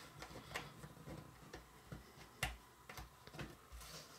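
Jigsaw puzzle pieces being handled and set down on a table: scattered faint clicks and taps, with a slightly louder tap about two and a half seconds in.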